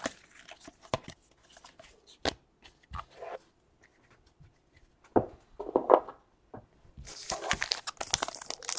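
Trading cards and a foil card-pack wrapper handled: scattered light taps and rustles, then from about seven seconds in a dense crinkling, growing louder, as a foil pack is torn open.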